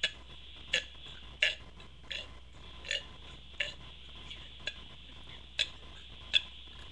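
A woman's short deliberate burps, made without soda, coming in a quick series of about nine, roughly one every 0.7 seconds.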